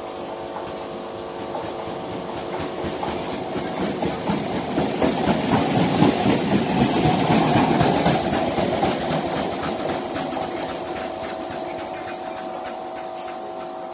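Diesel OHE inspection car passing slowly on the track: a steady engine drone under a clatter of wheels over rail joints, swelling as it draws close about six seconds in and fading as it moves away.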